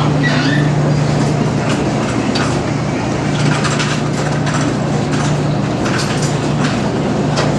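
Dexter T-300 commercial front-load washer running its hot wash cycle, with a steady low hum and an even churning noise from the turning drum and water. Irregular light knocks come from the load tumbling.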